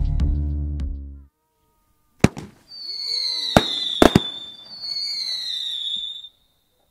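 Fireworks going off: a sharp bang, then two high whistles of about two seconds each, each sliding slightly down in pitch, with a few sharp cracks during the first.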